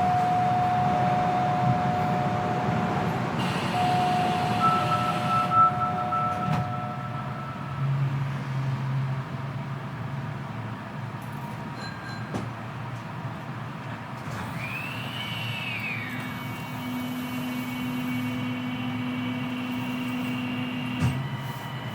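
Kita-Osaka Kyuko 9000 series train's Toshiba IGBT VVVF inverter and permanent-magnet synchronous traction motors pulling away from a station, heard through the floor right above the motor. Steady inverter tones sound over the running noise, and a whine glides up and back down about fifteen seconds in. There is a single knock near the end.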